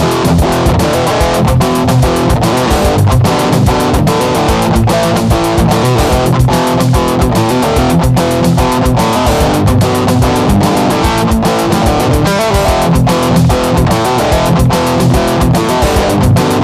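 Home-recorded guitar music played over a steady drum-machine beat.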